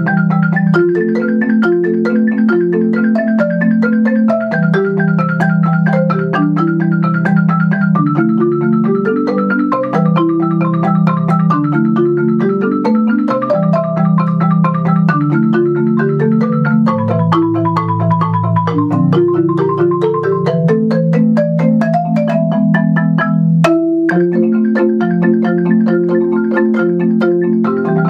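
Background music led by mallet percussion: quick repeated notes in climbing runs over sustained low notes.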